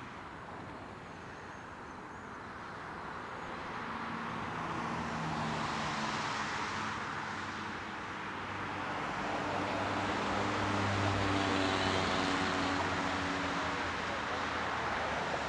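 Road vehicles passing, their tyre and engine noise swelling twice, about a third of the way in and again past the middle.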